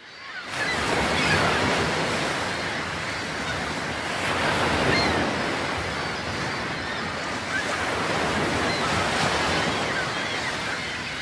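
Steady rushing noise that fades in over the first half second and holds throughout, with faint short chirps scattered above it.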